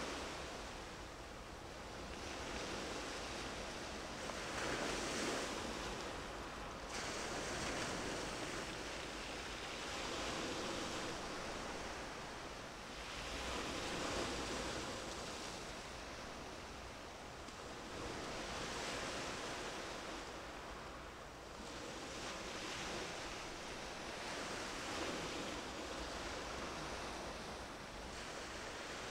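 Sea waves washing in, a steady hiss of surf that swells and eases every few seconds.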